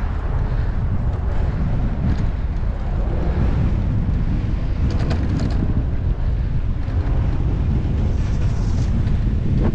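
Wind buffeting a helmet-mounted action camera's microphone while cycling, a steady loud low rumble. A few light clicks come about halfway through.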